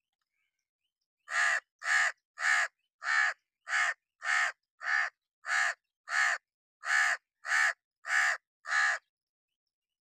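A perched crow cawing: a steady series of thirteen short caws, about one and a half a second, starting a little over a second in and stopping about a second before the end.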